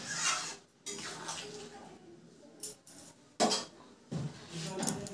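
A steel spatula scraping and knocking against a steel kadai while a curry is stirred, making several separate clanks and scrapes.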